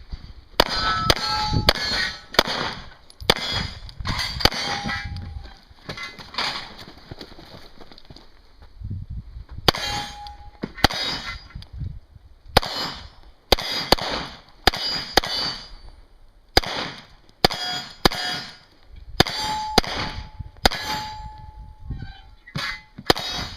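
Mini Uzi submachine gun firing in quick pairs and short strings, with steel targets clanging and ringing after hits. There is a lull of a few seconds about a third of the way in before the firing resumes.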